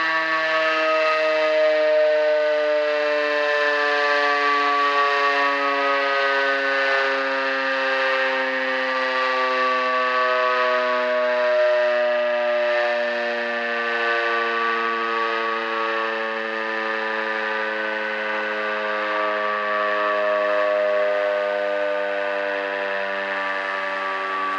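Modified WW2 Elektror L1/F2 combination motor siren (a three-port high-tone unit bolted directly onto a nine-port low-tone unit) sounding loud with many overtones, its pitch sinking slowly and steadily.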